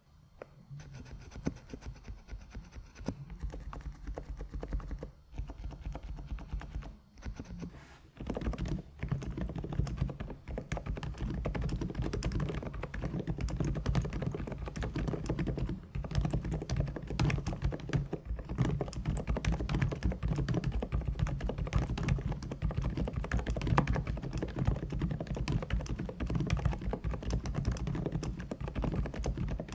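Typing on a MechLands Vibe 108 keyboard fitted with MechLands Vela silent linear switches, pre-lubed: creamy, dampened keystrokes. It starts as lighter, scattered typing and becomes fast, continuous typing at about eight seconds in.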